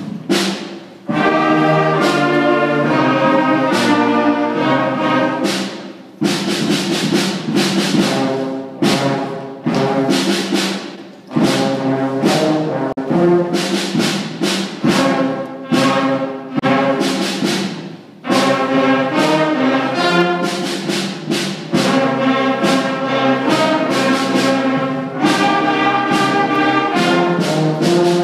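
A sixth-grade school concert band playing together, with flutes over trumpets, French horn and tuba. The music moves in short phrases, with brief breaks between them.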